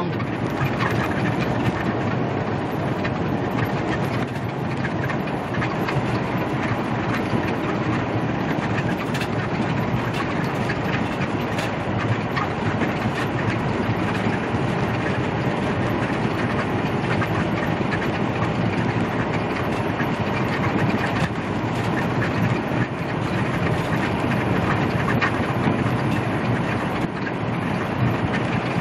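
Steady drone of a Peterbilt semi truck's engine and tyres on wet highway pavement, heard from inside the cab.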